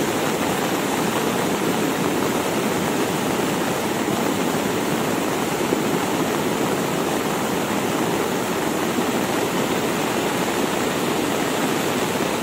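Cold lahar floodwater, a volcanic mudflow, rushing down the river channel in a steady, unbroken wash of water noise, with heavy rain falling.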